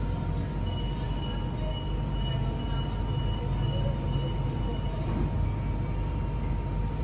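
Sydney Metro train standing at the platform with its equipment humming steadily: a low rumble under a constant whine. A thin high tone sounds for a few seconds in the middle.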